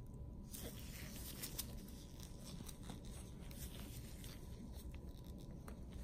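Faint handling noise: soft rustling and scattered light clicks from gloved hands working gauze and a nail instrument at the toe.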